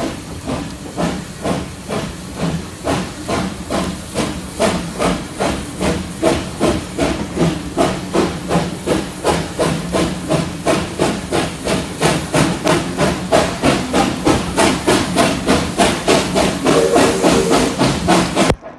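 Steam locomotive Victor, a Bagnall 0-6-0 saddle tank, working hard as it pulls away, heard close up from the train. Its exhaust beats come about four a second, quickening a little, over a steady hiss of steam.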